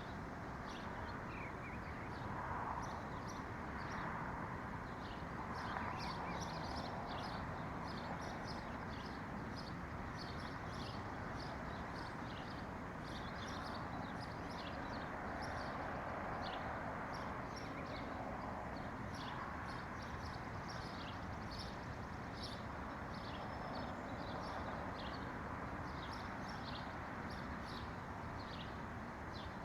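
Small birds chirping and twittering in many quick, short high notes, over a steady rushing background noise that swells and fades gently every few seconds.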